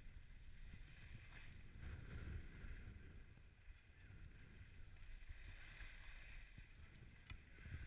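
Faint hiss and scrape of skis sliding over packed snow, swelling and fading as the skier turns, over a low rumble of wind buffeting the microphone.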